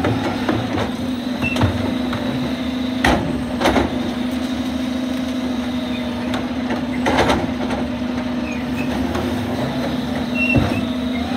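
Side-loader garbage truck with a Richards compactor body working its hydraulic bin-lifting arm: a steady hydraulic whine over the running engine, with sharp clanks and bangs a few seconds apart as the wheelie bin is tipped into the hopper and set back down.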